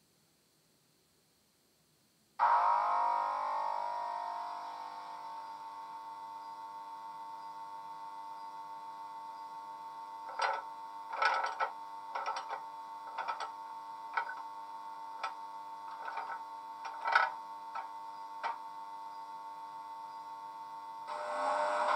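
Sound decoder in a Heljan Class 86 model locomotive playing a simulated electric locomotive starting up through its small speaker: after a silence, a steady electric hum with several tones comes on suddenly about two and a half seconds in and settles. From about ten seconds in, a run of short irregular clicks and clunks plays over the hum, and near the end the sound grows louder.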